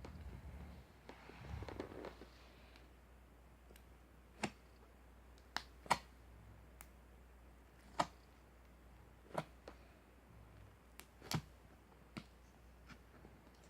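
A low rustle at first, then about eight short, sharp clicks at irregular intervals over faint room tone.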